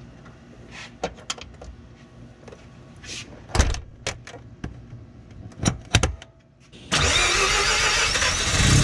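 A few light clicks and knocks. Then about seven seconds in, the single-turbo Mazda RX-7 FD's twin-rotor 13B rotary engine comes in suddenly, running loudly and heard right by the BorgWarner turbo's open pod air filter.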